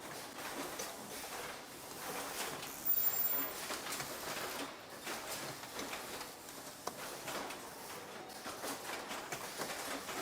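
Factory assembly-line ambience: scattered light clicks and clatter of hand work and machines, with a brief louder mechanical burst about three seconds in.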